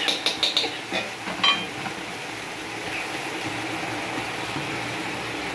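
Slotted metal spatula clinking against a steel wok of stir-frying vegetables, several quick knocks in the first second and a half. A steady hiss carries on underneath from the hot wok and stove.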